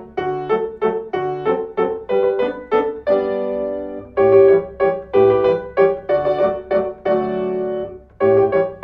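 Instrumental background music played on a keyboard: a tune of short, evenly spaced notes with a few longer held chords.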